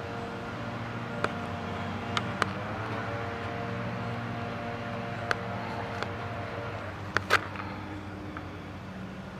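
Steady drone of a running engine, with a few sharp clicks from the helmet and its intercom mount being handled, the loudest pair about seven seconds in.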